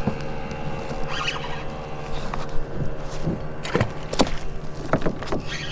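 A hooked fish being landed beside a kayak: several short, sharp splashes and knocks as it is played to the side and scooped into a landing net, over a steady low hum.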